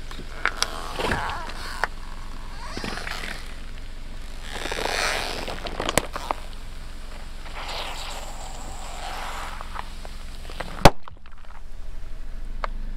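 Car tyres rolling over and crushing crunchy objects: crackling and crunching in several swells, with scattered sharp snaps. The loudest is a single sharp crack near the end.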